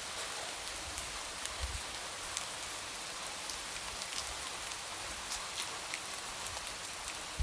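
Light rain pattering steadily on a window, a constant soft hiss scattered with small drop ticks and a few soft low thuds.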